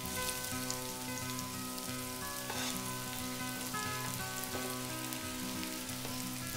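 Courgette pieces sizzling as they are added to hot olive oil and sliced garlic in a frying pan, with a few small ticks as pieces land. Background music plays underneath.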